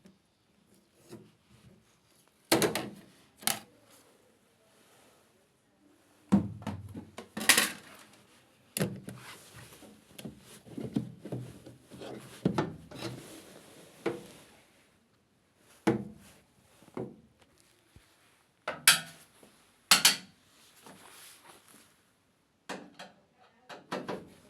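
Irregular knocks, clicks and clatter of parts and tools being handled, with scraping and rubbing between them. The sharpest knocks come about two and a half seconds in, again around seven and a half seconds, and twice near the end.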